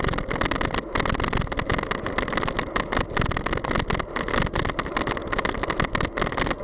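Wind rushing and buffeting on the microphone of a camera mounted on a moving bicycle, with road noise, in a constant, gusty rush.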